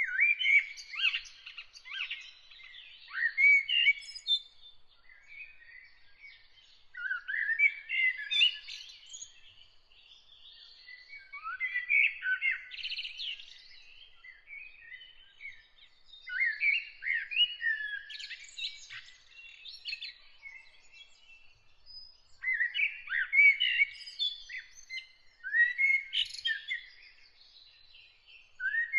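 Songbird singing in separate phrases of warbled and chirped notes, one every four to five seconds with short pauses between, over a faint steady high tone.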